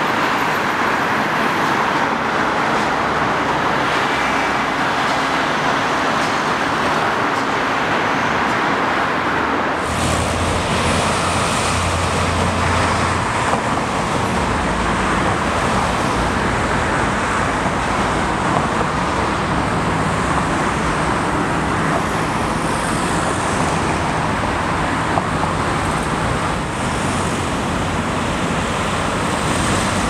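Steady noise of road traffic, cars and other motor vehicles driving past in a continuous hum of tyres and engines. About ten seconds in, the sound changes abruptly to a closer mix with more low rumble.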